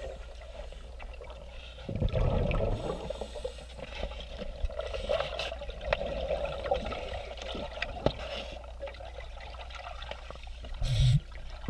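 Scuba regulator exhaust bubbles heard underwater: a bubbling rumble about two seconds in and again near the end, with a faint watery hiss and small clicks between.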